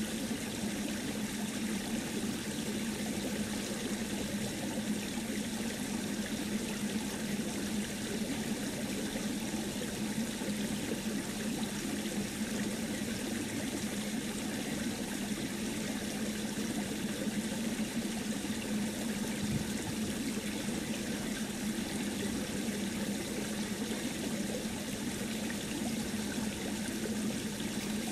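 Steady, unchanging background noise with a low hum underneath; no distinct paper-folding sounds stand out.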